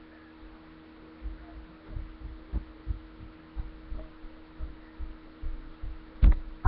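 Irregular dull low thumps over a steady hum, with a sharper, louder knock about six seconds in.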